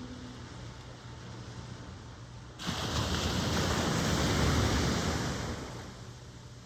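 Ocean surf: a wave breaking, its rush of water rising suddenly about two and a half seconds in, peaking, then washing away over the steady background hiss of the sea.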